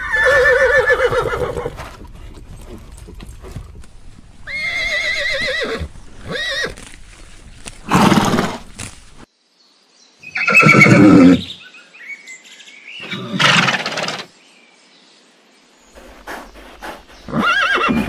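Horses neighing: about six separate whinnies with short gaps between them. The first calls have a shaking, wavering pitch.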